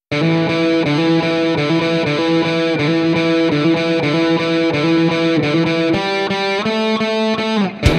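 Background rock music with distorted electric guitar chords, starting abruptly. Near the end the notes slide down and a sharp hit lands.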